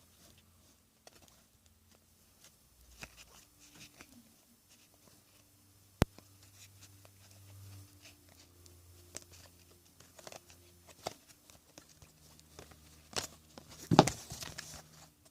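Quiet rustling and small clicks of trading cards and foil pack wrappers being handled, with one sharp click about six seconds in and a louder rustle near the end.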